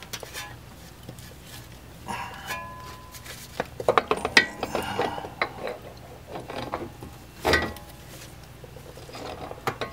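Metal clinks and knocks, some with a short ring, as the splined end of a new CV axle is pushed and turned against the transmission, not yet seating past its snap ring. The loudest clusters come about four seconds in and again near eight seconds.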